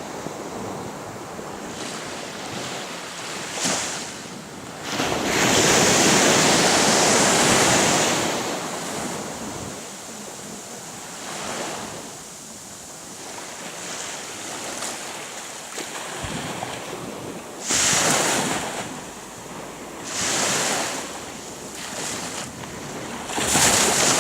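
Sea waves washing onto the shore, coming in as repeated swells of hiss: one long loud surge about five seconds in, then several shorter ones later. Wind buffets the microphone throughout.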